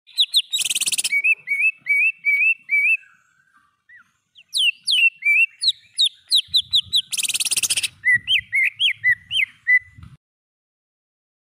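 Cucak ijo (green leafbird) singing: quick runs of sharp whistled notes that slide up and down, each run broken by a harsh rattling burst, once near the start and once about seven seconds in. The song stops about ten seconds in, leaving the pause (jeda) that this tutor recording for training cage songbirds is built around.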